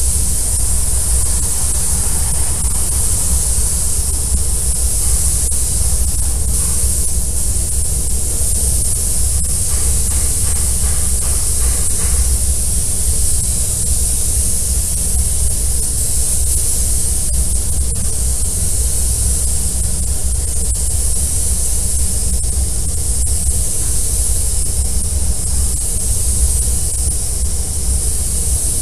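Air spray gun hissing steadily as it sprays quartz glass coating onto a car's body panels, over a steady low rumble.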